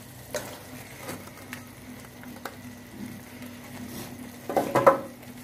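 Masala frying quietly in an aluminium pan as mashed roasted eggplant is tipped in from a plate, with a few light clicks of plate and spoon against the pan. Near the end comes a louder stretch as a metal spoon starts stirring and scraping in the pan.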